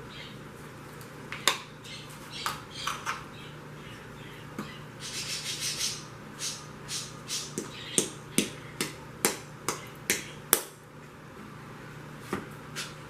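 Sharp clicks and knocks of carbine parts being handled and set down during disassembly, a dozen or so at uneven spacing, with a brief rustle about five seconds in.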